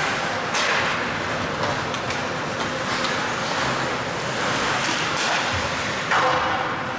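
Ice hockey play at the rink: a steady hiss of skates and rink noise with several sharp clacks of sticks and puck, the loudest hit about six seconds in.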